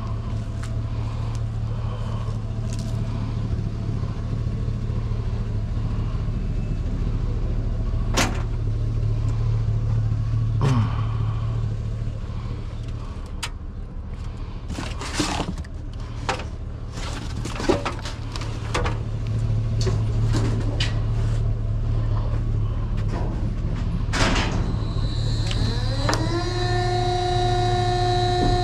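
A steady low hum runs throughout, with scattered knocks and clicks. Near the end a motor spins up with a rising whine and settles into a steady tone.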